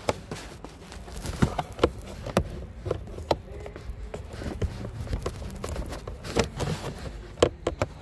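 Irregular plastic clicks and knocks as fingers squeeze the locking tabs of the cabin-filter access cover behind the glove box and work it loose.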